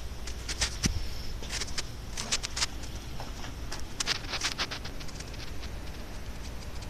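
Footsteps on a concrete floor: clusters of sharp clicks and scuffs in the first five seconds, over a low steady rumble.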